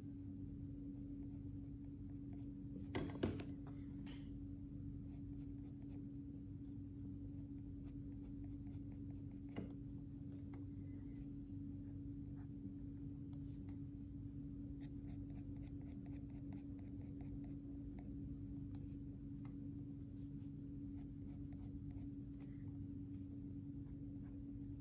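Graphite pencil scratching on paper in many short shading strokes, over a steady low hum. A louder scratchy cluster comes about three seconds in, and a single sharp tick near ten seconds.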